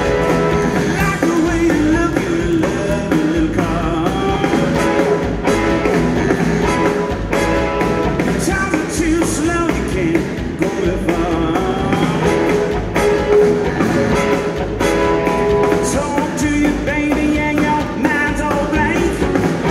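Live blues-rock band playing loudly: electric guitar over drums and bass, with a man singing into the microphone.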